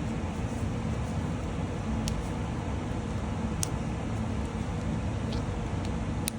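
Steady low background rumble, like room or air-conditioning noise, with a few small sharp clicks about two seconds in, near the middle and near the end.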